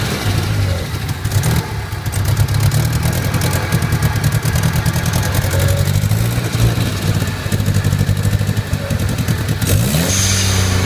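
Nissan 200SX's 1.8-litre turbocharged four-cylinder engine idling roughly, its low note wavering and uneven. The lumpy idle is the fault the owner is chasing two weeks after an engine rebuild.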